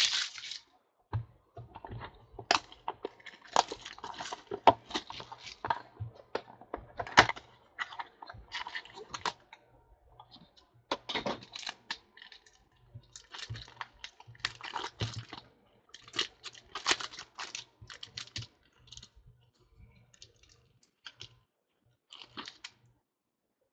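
A brief loud crackle at the very start, then many light, irregular clicks and taps in quick clusters with short pauses between them, thinning out near the end.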